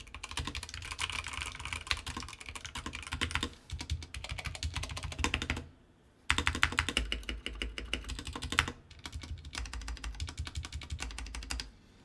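Fast typing on two budget 70% mechanical keyboards in turn, a Redragon K599 with Outemu red linear switches and a Royal Kludge RK71 with brown switches: a dense clatter of keystrokes. It breaks off briefly about halfway through, where the typing moves from one board to the other.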